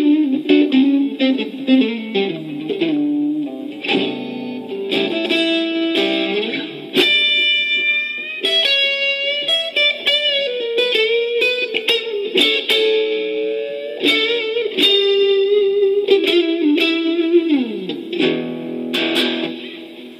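Electric guitar played solo for a tone test: picked single notes and short runs, with a long held note and a downward slide, dying away near the end.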